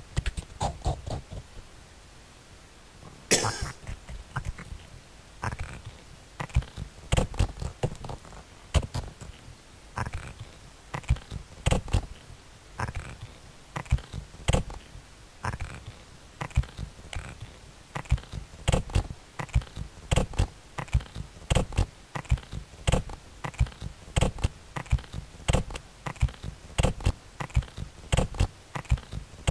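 Experimental noise music: an irregular stream of short clicks and knocks, growing denser, with one longer hissing burst about three seconds in.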